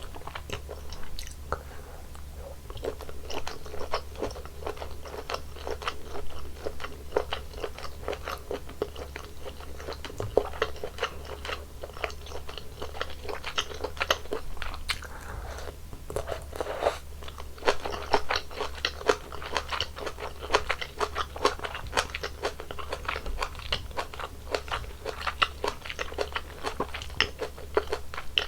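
Close-miked eating of spicy malatang: continuous chewing and biting, with many small crunchy, wet clicks.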